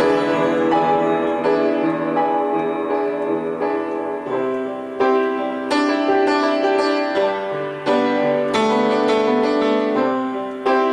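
Solo piano playing an instrumental passage of chords and melody notes, with fresh struck chords about five, eight and eleven seconds in.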